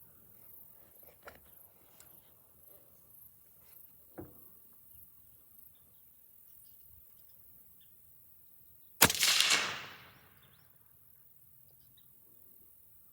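A single suppressed rifle shot from a 6.5 Creedmoor Ruger American fitted with a Sig Hexium suppressor, about nine seconds in, its report fading over a second or so. Faint clicks of handling the rifle come before it.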